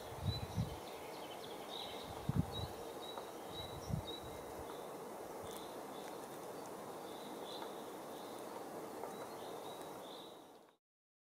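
Outdoor ambience: a steady faint hiss with a short high chirp repeating every second or so, from a small bird or insect, and a few low thumps in the first four seconds. The sound cuts off suddenly near the end.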